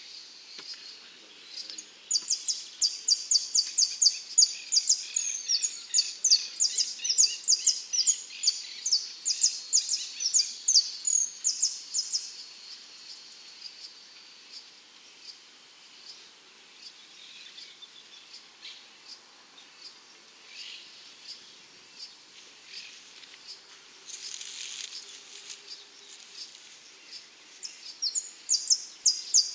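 Saffron finch (dorado) singing: a fast run of high, sharp chirping notes lasting about ten seconds, with a short burst later and another quick phrase near the end.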